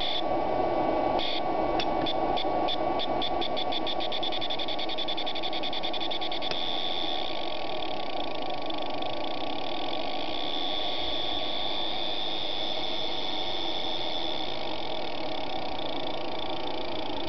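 Spark plug fired by a car ignition coil pulsed from a 555-timer PWM circuit, snapping in open air. Single snaps come about a second apart, quicken over a few seconds into a fast rattle, and merge into a continuous buzz as the firing rate rises, over a steady electrical hum.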